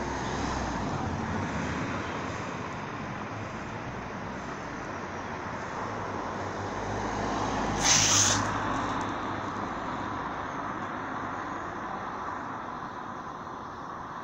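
Steady outdoor rumble of distant traffic, with a short, sharp hiss about eight seconds in.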